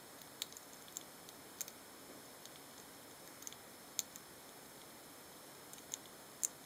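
Roborovski dwarf hamsters cracking and handling seeds: scattered, irregular small sharp clicks over a faint steady hiss, the loudest about four seconds in and near the end.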